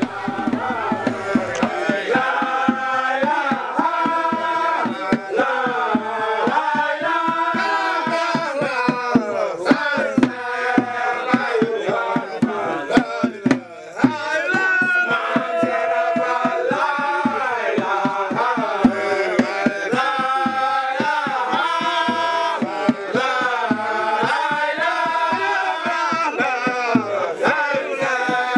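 Voices chanting a repeated melody to a steady drum beat, with a brief break about halfway through.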